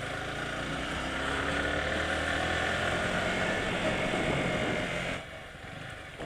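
Sport motorcycle engine running under way with road and wind noise, its pitch rising gently as it pulls. About five seconds in the throttle is rolled off and the sound drops suddenly to a quieter run.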